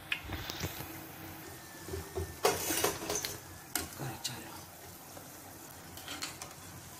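Fafda (gram-flour strips) deep-frying in hot oil in a steel kadai, with a steady sizzle and bubbling, which the cook takes as the sign the fafda are turning out right. A perforated steel skimmer scrapes and clinks against the pan as it turns them, loudest a little over two seconds in.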